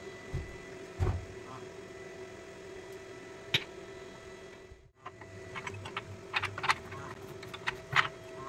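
Light metal clicks and taps of a steel drill chuck and sprocket parts being handled, with a sharp click as the chuck is set down on a steel plate, then a quicker run of irregular clicks from the sprocket assembly, over a steady hum.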